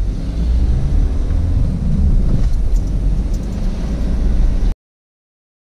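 Low, steady rumble of a car driving slowly, heard from inside the cabin; it cuts off suddenly near the end.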